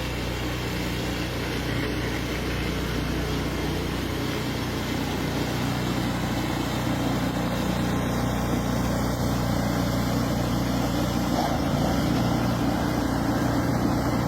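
Vehicle engine running at a steady speed: an even low hum under a wash of noise.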